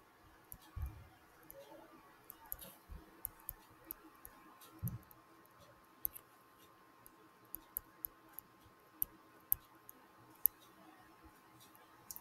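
Faint, irregular clicks and taps from handwriting on a computer or tablet, with a few soft low thumps among them, over a faint steady hum.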